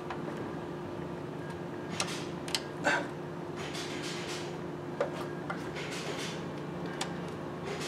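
Scattered light metallic clicks, knocks and scrapes as a new oil pump and its drive chain are handled and fitted by hand into the engine block of an Audi 2.0 TFSI, over a steady hum in the background.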